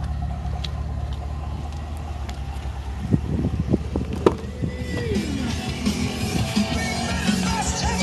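The Camaro SS's 6.2-litre V8 idles as a steady low hum. About three seconds in, a few clicks and knocks break in. Rock music with singing starts about five seconds in.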